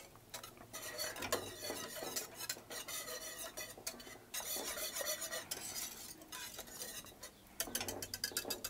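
Wire whisk stirring thick barbecue sauce in an enamelled cast-iron pot to melt a piece of butter into it: a steady wet swishing with the wires ticking and scraping against the pot, growing into a quick flurry of clicks near the end.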